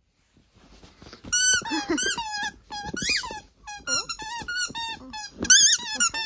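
A dog biting a squeaky ball toy, setting off a rapid series of short, high-pitched squeaks that start about a second in.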